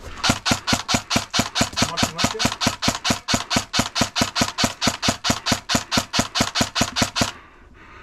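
Airsoft rifle fired in a long string of rapid semi-automatic shots, about four to five a second, stopping about a second before the end.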